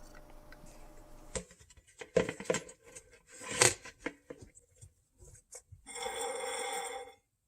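Wrench work on a water heater supply hose fitting: scattered metal clicks and knocks, then a steady ringing squeal lasting about a second near the end.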